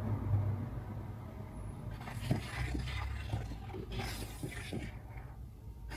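Pencil scratching along the edge of a plastic curve ruler on pattern paper as a curved line is drawn, in two soft strokes about two and four seconds in, over a low steady hum.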